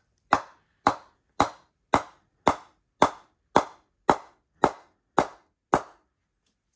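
A wooden bat mallet knocks eleven times, evenly, on the face of a Gray-Nicolls Megapower Original cricket bat (grade 2 English willow), working up the blade from the toe. This is a mallet test of the blade's response, which the reviewer finds better lower down on this low-middle bat.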